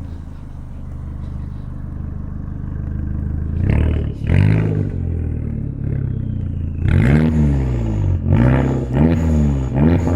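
Turbocharged 1.8-litre four-cylinder engine of a 2005 VW Jetta GLI (MK4), running through a catless straight-pipe exhaust with the muffler deleted. It idles steadily and slowly grows louder, then from about three and a half seconds in it is revved in about six quick throttle blips, each pitch rising and falling back.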